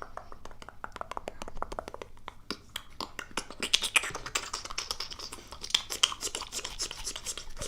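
Rapid wet mouth sounds close to the microphone: a quick run of tongue and lip clicks and pops, several a second, with breathy hiss in places.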